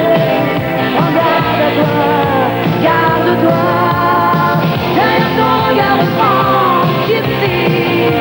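Rock song played by a band: electric guitars over bass and drums, with a gliding melodic line on top.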